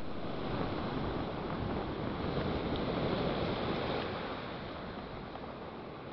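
Sea waves: a steady rush of surf that swells to a peak about three seconds in and then slowly dies away.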